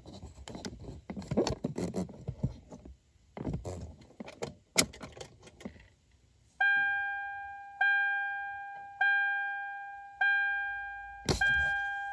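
Keys jangling and clicking as the ignition key of a 2011 Toyota Tundra is worked. Then, about six and a half seconds in, the truck's dashboard chime begins pinging: a bell-like tone that strikes and fades, five times, about once every 1.2 seconds.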